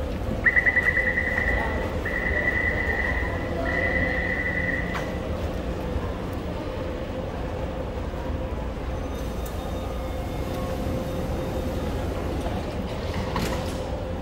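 Metro door-closing warning: a rapid, buzzing beep sounds three times in a row over about four and a half seconds, starting about half a second in, as the train and platform screen doors close. Under it, a steady hum from the train standing at the platform.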